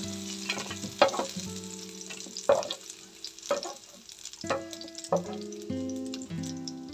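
Hot oil sizzling in a wok while a metal spatula scrapes the pan and scoops out fried chicken pieces, in strokes about once a second. Soft background music with held notes plays underneath.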